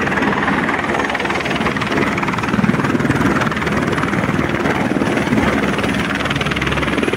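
Helicopter running loud and steady close by, its rotor beating in a rapid, even chop.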